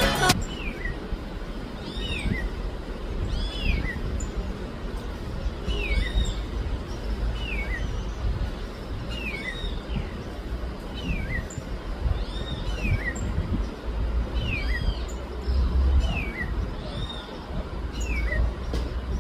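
A bird calling over and over, about once every one and a half seconds, each call a quick falling note with a higher arching note above it, over a low rumble of background noise.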